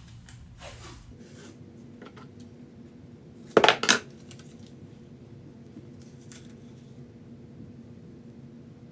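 A short clatter of hard objects knocking together, two or three sharp knocks close together about three and a half seconds in, over a faint steady hum.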